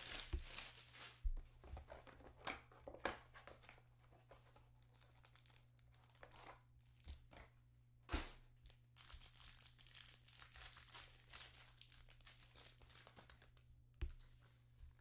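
Faint crinkling and tearing of trading card pack wrappers being opened, with scattered rustles of cards being handled and a couple of sharper clicks, one about eight seconds in and one near the end.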